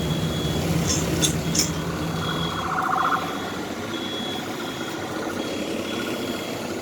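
A high-pitched electronic alarm beeping on and off about once a second over the steady low rumble of a truck engine running, with a few sharp clicks between one and two seconds in.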